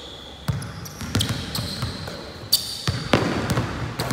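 A basketball bouncing on a hardwood gym floor: several uneven thumps, mixed with short high squeaks.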